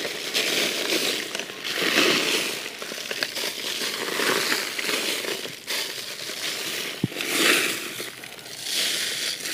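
Bone meal and goat droppings poured and shaken from a metal pan onto dry leaf mulch: a dry rustling and crackling that swells and fades several times, with a single sharp tap about seven seconds in.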